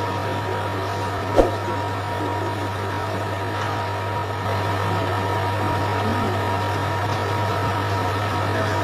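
TIG welding arc on stainless steel, a steady buzzing hum with hiss, with one sharp click about a second and a half in.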